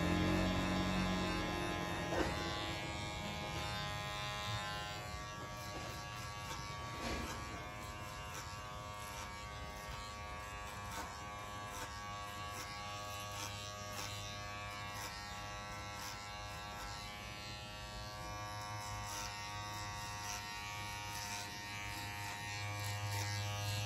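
Electric hair clippers buzzing steadily as their blades cut short hair at the back and sides of the head.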